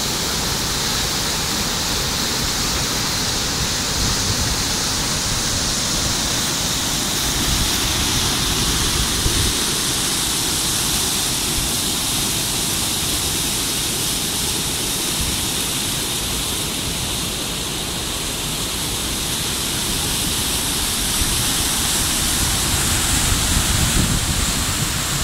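River rapids: fast water rushing and churning over boulders in a steady, unbroken rush of noise.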